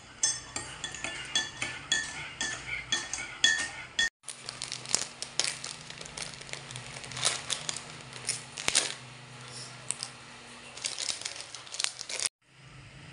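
A metal spoon stirring in a ceramic mug, clinking against its sides about three times a second. After a short break, a plastic snack packet is handled and opened, giving irregular crinkles and rustles over a faint low hum.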